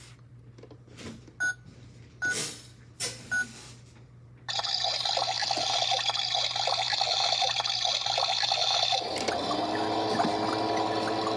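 Toy washing machine starting a wash cycle: a few light clicks and knocks, then a steady water-filling hiss from about four seconds in. About nine seconds in it changes to a steady whir with a few held tones.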